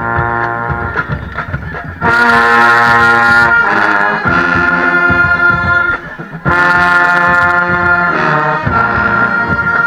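A pep band's brass section, trombones among them, playing a stand tune, heard through a GoPro's waterproof case. Two loud held chords come in about two and about six and a half seconds in.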